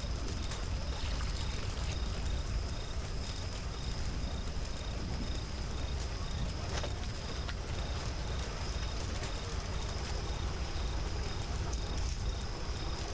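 Wood fire burning under a large pot of boiling pomegranate juice: a steady low rumble with a few sharp crackles and knocks as wood is added. A thin, high, evenly pulsing chirp of night insects sits above it.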